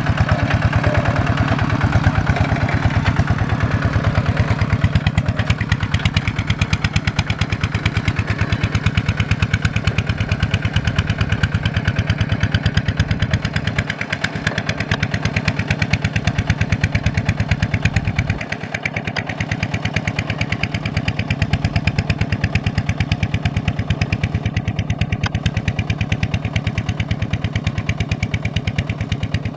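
Kubota single-cylinder diesel engine (RT140/ZT180 type) running steadily with an even, rapid firing beat.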